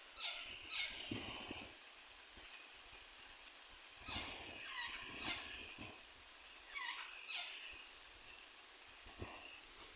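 Quaker parrot chirping and chattering in short bursts of quick, falling squawks, with pauses of a few seconds between bursts.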